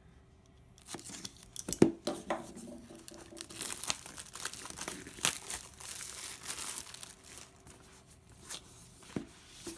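Clear plastic shrink wrap being torn and crinkled off a cardboard product box, an irregular crackling that goes on for several seconds. A sharp knock about two seconds in and another near the end come from handling the box.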